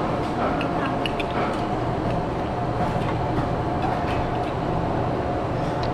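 Busy eatery ambience: a steady mechanical hum with background voices and a few light clinks of dishes and spoons.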